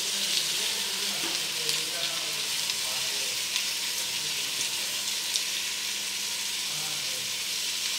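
Chopped tomatoes sizzling in hot oil in an aluminium idli pot, a steady frying hiss, with a few light scrapes and taps of the metal spoon stirring them.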